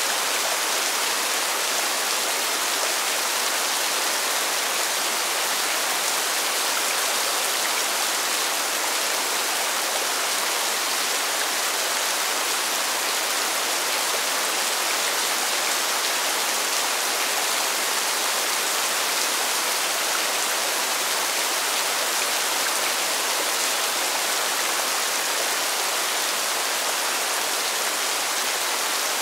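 Steady rain falling on pavement: an even, unbroken hiss of dense drops.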